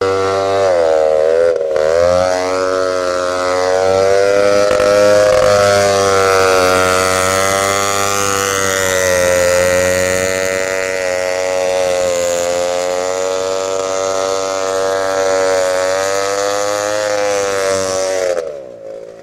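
Small engine of a homemade motorized bicycle contraption running hard with a steady whine whose pitch drifts slowly up and down with the load. It stops abruptly near the end, its pitch falling away.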